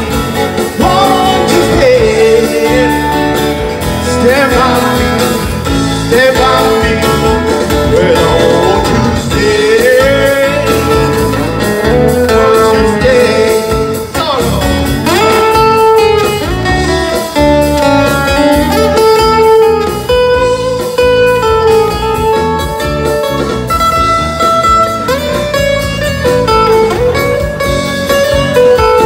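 A man singing a melody with long held notes into a microphone, accompanied by an acoustic guitar.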